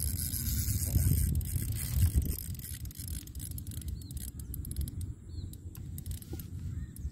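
Cheap plastic spinning reel worked against a hooked fish on a bent rod: scattered faint clicks and scrapes over a low rumble, as of wind on the microphone, that is heaviest in the first two seconds or so.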